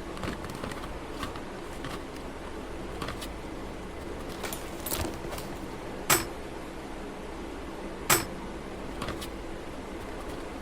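Light clicks and clinks of small hard objects being handled, with two sharp, louder clicks about two seconds apart, over a steady low hum.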